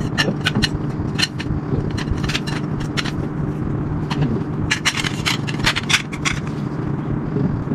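Tent poles clinking and scraping as they are handled and laid out: runs of sharp clicks, with a steady low hum underneath.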